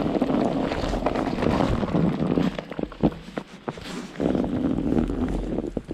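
Wind buffeting the microphone in strong gusts, easing for about a second and a half midway and then rising again, with scattered sharp knocks and clicks throughout.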